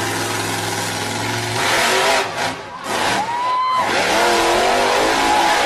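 Monster truck engine idling steadily, then revving hard about a second and a half in, with spectators shouting and cheering near the end.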